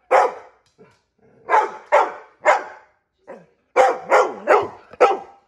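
Chocolate Labrador barking at a person, about eight short, sharp barks with brief gaps between them, coming quicker in the second half: demand barking for a treat.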